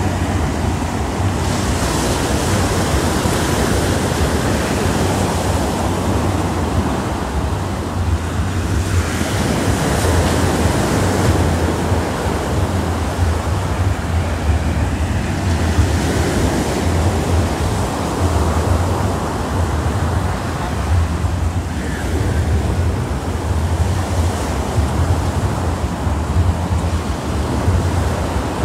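Ocean surf: small waves breaking and washing up the sand, swelling every several seconds. Wind buffets the microphone with a steady low rumble.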